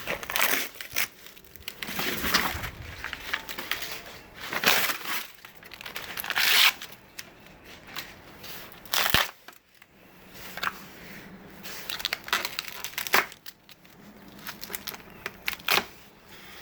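Peel ply fabric being ripped off freshly cured fiberglass laminate and handled, in irregular bursts of tearing and crinkling with a sharp click about nine seconds in.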